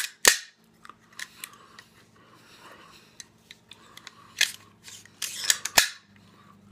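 AR-15 bolt carrier and charging handle being cycled by hand in the upper receiver, giving sharp metallic clacks: two right at the start, lighter clicks about a second in, and more around four and a half to six seconds in. The action cycles smoothly, with the new gas block not interfering with the bolt.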